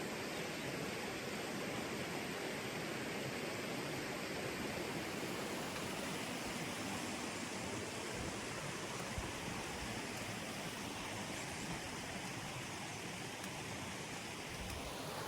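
Steady rush of flowing water from a moorland beck and waterfall.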